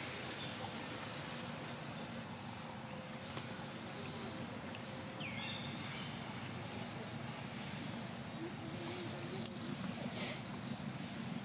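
Outdoor ambience: a steady high insect drone with short, high chirps scattered through it and a single sharp click about nine and a half seconds in.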